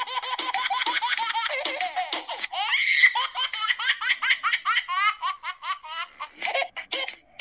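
A baby laughing hard in quick, regular bursts, with a rising squeal about two and a half seconds in, the laughs growing choppier near the end.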